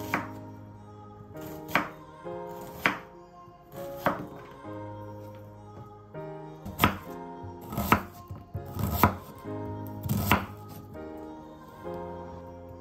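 Kitchen knife slicing through a red onion and knocking on a wooden cutting board: about eight sharp chops, irregularly spaced, over soft background music.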